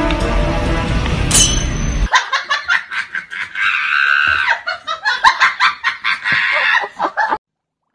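Music that stops about two seconds in, then laughter in quick choppy bursts that cuts off sharply near the end.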